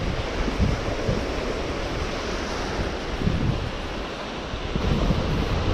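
Small surf waves breaking and washing up a sandy beach, with wind buffeting the microphone.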